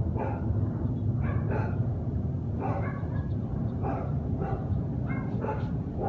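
Dogs barking over and over, about ten barks in six seconds, unevenly spaced and overlapping, agitated by a hot air balloon passing low overhead. A steady low rumble runs underneath.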